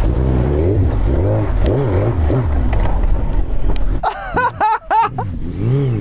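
Suzuki GSX-R1000 K2 superbike's inline-four engine revving up and down in repeated throttle blips off-road. About four seconds in there is a brief, higher wavering tone before the engine tone returns.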